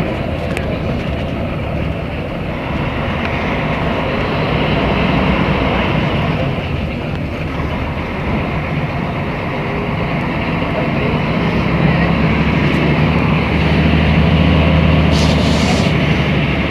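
Mercedes-Benz O500MA articulated bus's diesel engine running while the bus is under way, with road noise; the engine note grows louder and stronger over the last few seconds.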